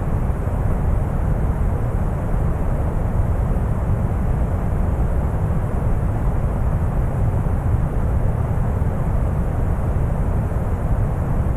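Steady brown noise: an even, deep rumbling hiss, strongest in the bass, with no change or events.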